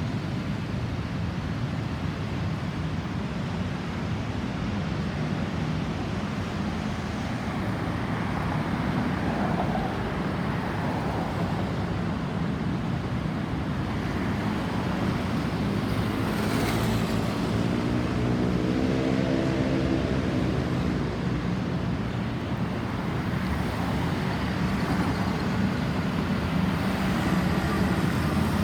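Steady road traffic rumble. About two-thirds of the way through, one vehicle passes close, its engine drone rising and then falling in pitch, just after a brief sharp sound.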